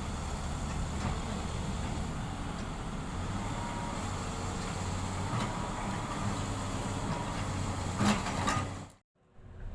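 Excavator's diesel engine running steadily, with a sharp knock about eight seconds in. The sound cuts off abruptly near the end.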